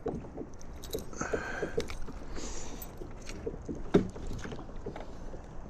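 Light knocks and clatter of gear against a kayak, with one sharper knock about four seconds in.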